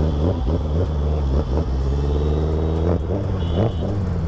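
Suzuki Hayabusa's inline-four engine running at low revs in slow traffic, a loud, steady low drone.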